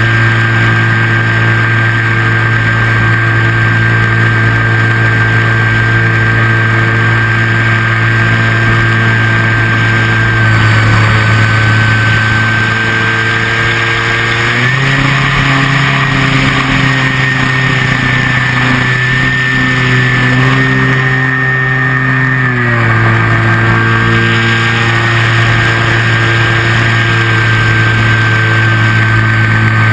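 RC L-4 Grasshopper model plane's motor and propeller running steadily with a high whine, stepping up in pitch about halfway through and dropping back about eight seconds later as the throttle is opened and then eased off.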